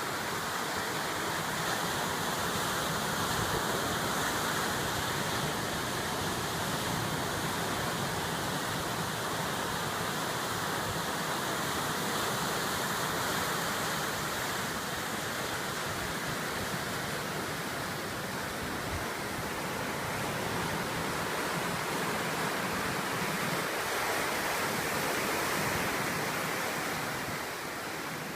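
Pacific Ocean surf breaking on the shore: a steady rush of waves that rises and falls only slowly.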